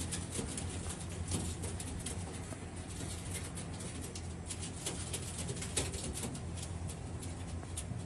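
Baghdadi pigeons cooing, with many short sharp clicks scattered throughout.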